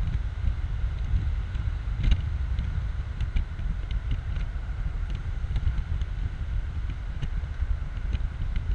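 Wind rushing and buffeting over the microphone in a BMW Z4 2.5i roadster driven at speed with the top down, with the car's engine and road noise running underneath. Faint scattered ticks, and one sharper knock about two seconds in.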